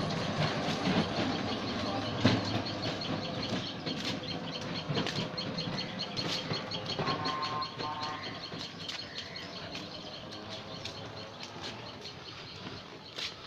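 Three-wheeled auto-rickshaw rattling and clattering over a brick-paved lane as it drives away, fading steadily, with sharp knocks and clicks from its body.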